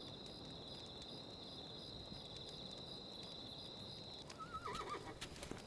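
Crickets chirring steadily, then, about four seconds in, a horse gives a short, wavering whinny.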